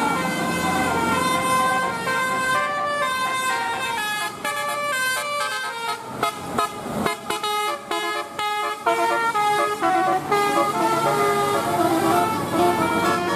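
A bus's basuri telolet horn, a multi-tone musical air horn, plays a tune of held notes that step from pitch to pitch over the bus's engine. Through the middle the notes come in short, choppy blasts.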